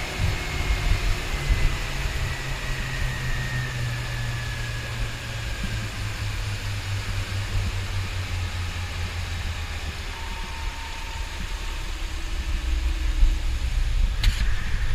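Twin Suzuki outboard motors running steadily as the boat moves under way, a low engine hum under the rush of water and wind. A brief burst of hiss comes near the end.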